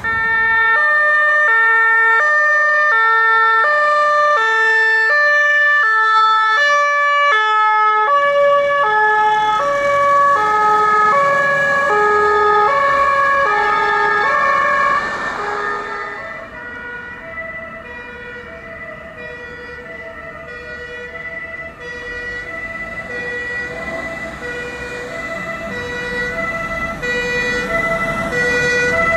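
German two-tone emergency sirens (Martinshorn) on fire-service vehicles. Several sirens overlap at different pitches, each stepping back and forth between two notes about once a second, over a steady high tone. The sirens are loud at first and fade after about fifteen seconds, then another siren grows louder as it approaches near the end.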